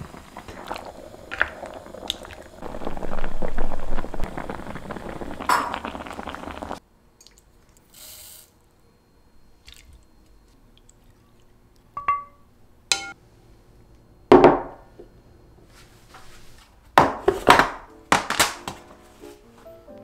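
Peeled quail eggs tumbling from a mesh strainer into a pot in a dense, rushing clatter, loudest a few seconds in, which stops suddenly. This is followed by a handful of separate clinks and knocks of kitchen utensils against glass and dishes.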